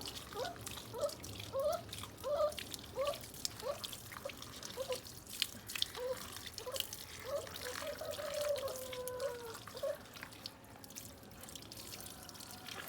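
Water dripping and splashing in a run of small irregular ticks. Over it comes a string of short pitched cries, about two a second, with one longer falling cry; the cries stop a little after the middle.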